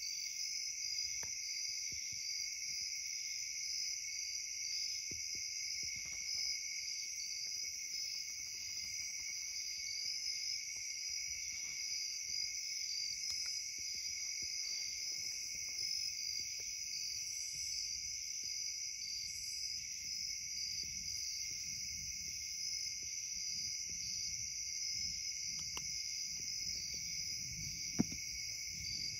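Steady night chorus of insects, several kinds singing at once at different high pitches with a faint pulsing rhythm. A single sharp click near the end.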